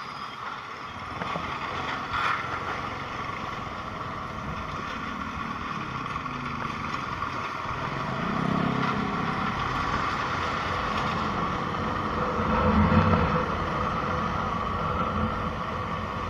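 Small motorcycle being ridden along a road: its engine and road noise run steadily, growing somewhat louder in the second half.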